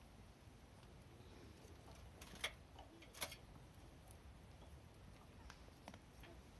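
Near silence with a few short, sharp clicks or snaps, the two loudest about two and a half and three seconds in.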